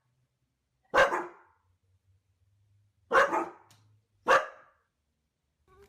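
A dog barking three times: single barks, the second about two seconds after the first and the third about a second after that.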